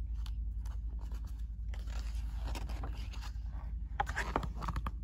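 Pages of a picture book being turned by hand: paper sliding and rustling, with a few light clicks about four seconds in, over a steady low hum.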